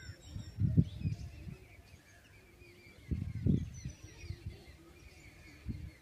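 Small birds chirping faintly, with a few low, muffled thumps and rumbles about a second in, again around three seconds in and near the end.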